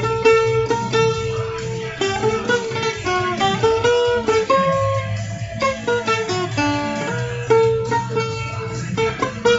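Guitar music: a run of plucked guitar notes in a melodic line over a steady low bass.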